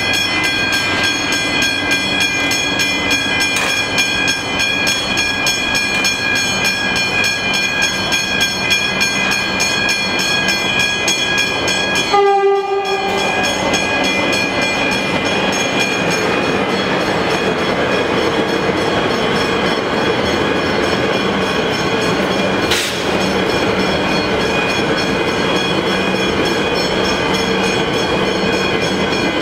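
Westinghouse hybrid mechanical level-crossing bells ringing continuously with rapid, even strikes. A short horn blast sounds about twelve seconds in, and an electric suburban train approaches and crosses near the end.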